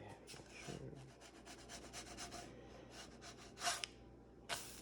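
Faint scraping with rapid light crackles at a pan of cooking pancakes, and two brief louder hisses in the second half.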